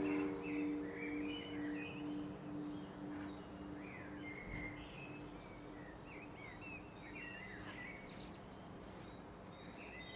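The hum of the Südkirche's last church bell dying away with a slow pulsing beat, fading out over the first several seconds after the ringing has stopped. Songbirds chirp and twitter throughout against a faint steady background noise.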